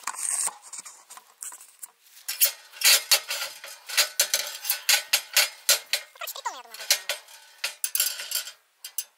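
Rapid metallic clinking and clanking of rusty scrap iron on an old mechanical beam platform scale as it is weighed. A short descending bleat from a farm animal comes about six seconds in.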